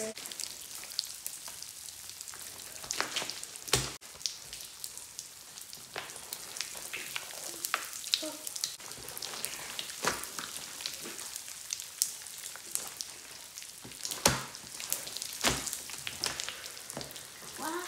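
Pop Rocks candy popping inside a large mass of clear glue slime as it is stretched and squished by hand: a dense, irregular crackle of tiny pops like sizzling, with a few louder cracks about four seconds in and twice near the end.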